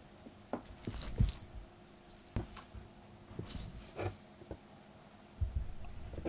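Small metal charm on a cat's collar jingling in short bursts as the cat pushes through a hole in a cardboard box, with soft bumps and rubbing of its body against the cardboard.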